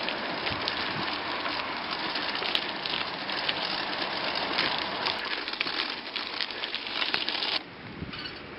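Rolling noise and rattling of a home-built recumbent bicycle ridden over bumpy ground, with scattered clicks and knocks from the frame and parts. The noise drops suddenly about a second before the end.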